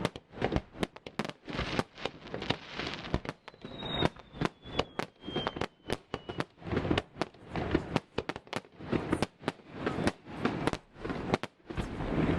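Fireworks display: a rapid, irregular run of bangs and pops, with a thin falling whistle from about three to six seconds in.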